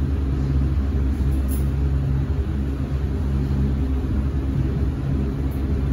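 ThyssenKrupp passenger lift running between floors: a steady low rumble with an even hum underneath.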